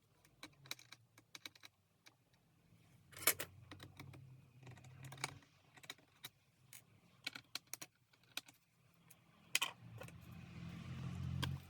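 Screws being removed from the plastic bottom case of an HP 15s laptop: scattered light clicks and taps of the screwdriver and the small screws, with a low steady hum in two stretches, near the middle and towards the end.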